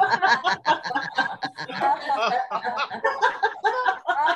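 Several people laughing together over a video call in short, rapid ha-ha bursts: deliberate laughter yoga laughter, the milkshake laughter exercise of miming a drink and then laughing.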